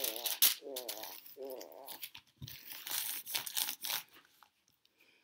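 Thin Bible pages being leafed through by hand, a run of paper rustles and crackles that dies away after about four seconds. A few short wavering squeaks sound in the first two seconds.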